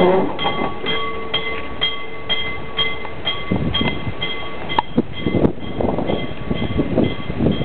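Narrow-gauge steam locomotive moving slowly, its exhaust puffing irregularly from about halfway through. A bell rings steadily about twice a second throughout, and a steady tone sounds for the first three seconds.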